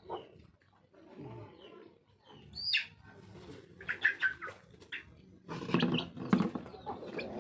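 Kampung (village) chickens calling in short, scattered calls: a high cheep a little under three seconds in, a few sharp calls around four seconds, and a louder run of low clucks around six seconds.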